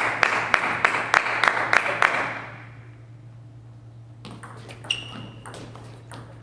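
Spectators clapping in rhythm, about three claps a second, fading out after about two and a half seconds. After a short lull, the sharp clicks of a table tennis ball bouncing and being struck by the bats in a rally.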